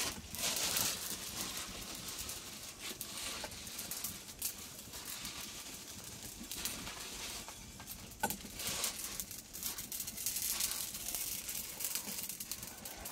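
Wood fire crackling and hissing under an iron frying pan, with scattered small clicks and pops.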